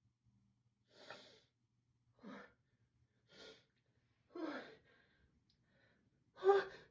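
A person's gasping, hitching breaths building up to a sneeze, five in a row about a second apart, growing louder, the last a voiced 'ah'. The sneeze does not come: a false alarm.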